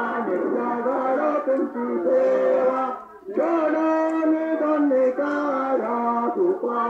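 Chanted singing in a man's voice, long held notes stepping from pitch to pitch, carried over a public-address loudspeaker, with a short break about three seconds in.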